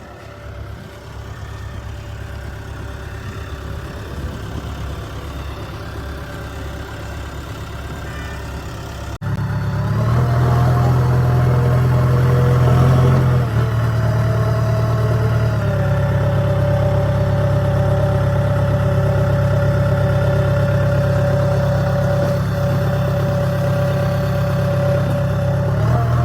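Diesel engine of a JCB 3DX backhoe loader running steadily. About nine seconds in it suddenly gets much louder, and its note shifts in pitch a couple of times after that.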